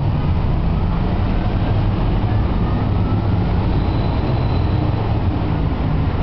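Steady low rumble of avenue traffic and of the Roosevelt Island aerial tram's cabin moving slowly overhead into its terminal.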